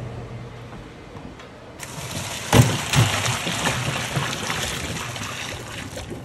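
Hot water and blanched tomatoes poured from a stainless steel stockpot into a colander in a stainless steel sink: a splashing rush of water starts about two seconds in and lasts about four seconds, with a couple of heavy thuds soon after it starts as tomatoes tumble in.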